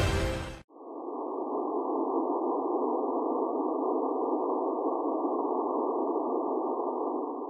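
Logo music cutting off within the first second, followed by a steady, muffled hiss of filtered noise with no tones in it.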